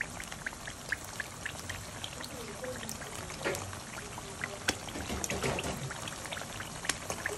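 Eggs frying in a pan of hot oil, sizzling steadily with many small pops and crackles.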